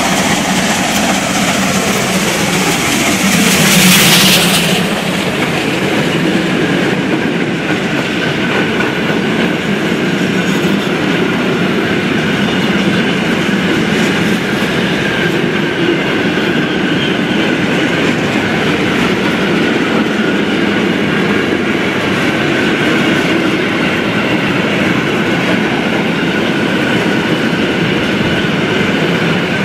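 DR class 44 three-cylinder 2-10-0 steam locomotive passing close by, its tone falling in pitch as it approaches and loudest about four seconds in. A long train of hopper wagons then rolls steadily past, wheels running on the rails.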